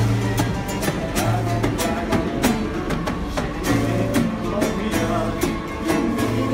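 Acoustic guitars strummed in a steady rhythm, with a man singing along.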